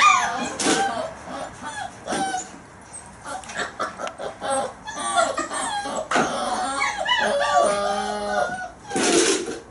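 Month-old German Shepherd puppies yipping and whining, many short squeaky calls overlapping one another. Near the end one puppy holds a longer, steady whine, followed by a short rustling scuffle.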